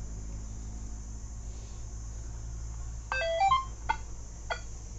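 Nokta Makro Legend metal detector playing a short start-up tone sequence as it boots, the beeps stepping upward in pitch, followed by two short clicks, over a steady low hum.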